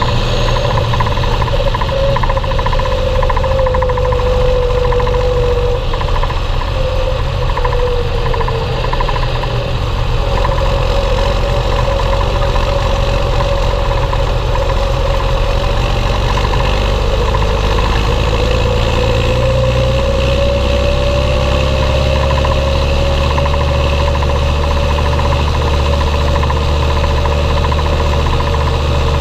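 Belarus 1221.3 tractor's diesel engine running steadily while pulling two loaded grain trailers, with a whine whose pitch sags a few seconds in and climbs back about two-thirds of the way through.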